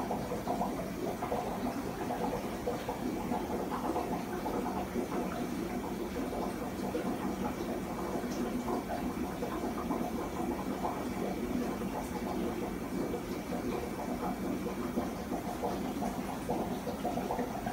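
Aquarium airstones bubbling steadily, a continuous busy bubbling with a faint high whine underneath.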